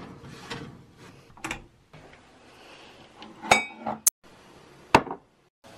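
Kitchenware being handled: a handful of separate knocks and clinks from a saucepan with a glass lid and ceramic mugs. The loudest is a ringing clink about three and a half seconds in.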